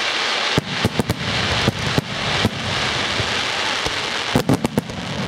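Aerial fireworks crackling with a steady fizzing hiss, punctuated by sharp bangs, with a quick cluster of bangs near the end.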